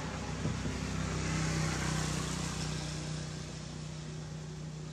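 A motor vehicle passing on the road, its engine hum swelling to a peak a second or two in and then slowly fading.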